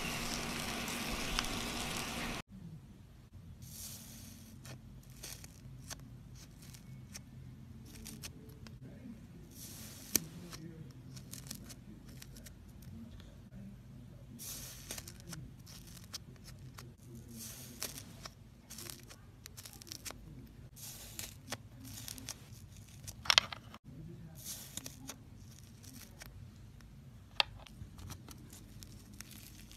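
Hand-played slime. First a dense fizzy crackle as foamy slime is pressed, then, after a sudden drop in loudness, scattered soft tearing crackles as white slime is pulled and stretched, with one sharper snap near the end.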